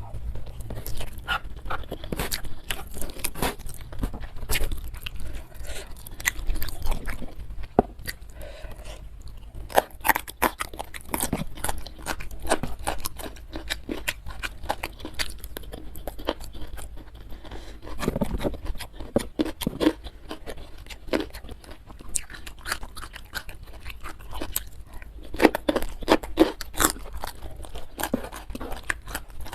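Close-miked chewing and crunching of food, with irregular clusters of wet, crisp mouth clicks and bites.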